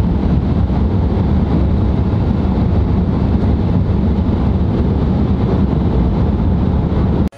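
Steady road and tyre rumble with wind noise inside the cabin of a moving Tesla Model 3 Performance, an electric car, so there is no engine note; it cuts off suddenly near the end.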